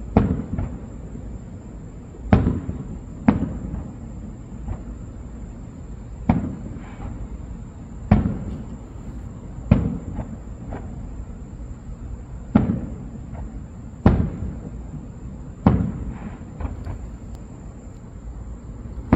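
Aerial firework shells exploding: about a dozen sharp bangs at uneven intervals of one to two seconds, each trailing off in a low rumble.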